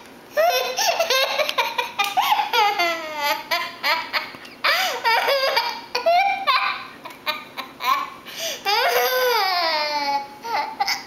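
A young child laughing in repeated high-pitched bursts and squeals while she has the hiccups.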